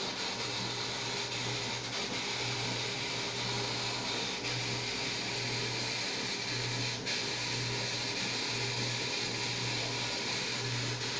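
Steady whirring hum of a small motor with a hiss over it; the low hum drops out briefly several times.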